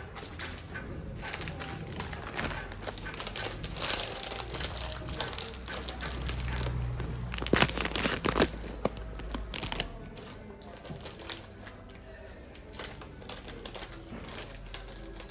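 Close-up crinkling and crackling of eating, with a burst of louder cracks about eight seconds in.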